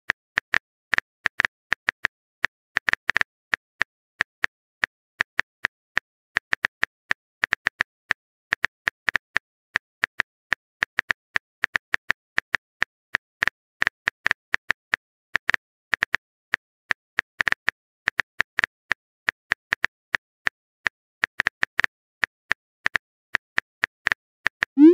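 Phone keyboard typing clicks, the key-tap sound effect of a chat-story app, in a quick, uneven run of short taps, a few a second.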